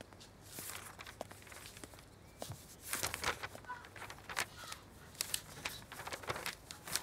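Footsteps on a hard floor with paper rustling, pages turning and files being handled and set down, in many short irregular clicks and rustles.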